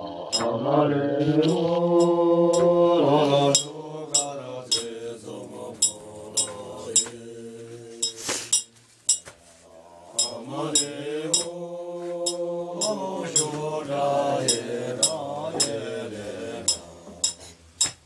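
Voices chanting a slow melody in long, held phrases that bend in pitch, loudest in the first few seconds. Frequent sharp clinks of cups and a metal kettle sound through it as tea is poured.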